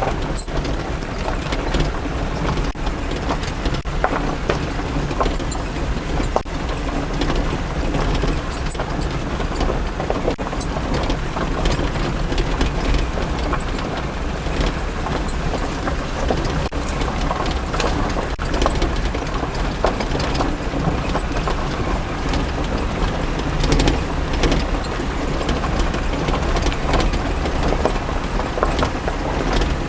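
A vehicle running and rattling as it moves along a rough track, with a steady low engine rumble under many small clicks and clanks.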